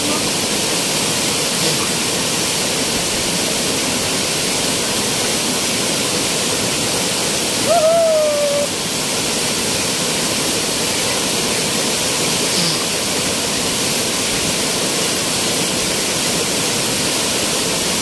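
Waterfall cascading over rocks into a pool: a steady rush of falling water.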